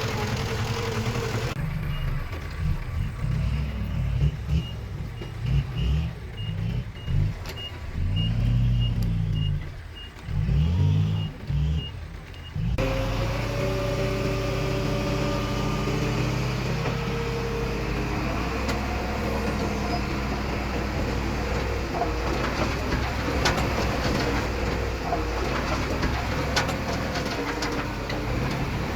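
Heavy diesel engines of a small bulldozer and dump truck at work, revving up and down under load, with a faint regular beeping for several seconds in the middle; later the engine runs steadily, with a few metallic clanks near the end.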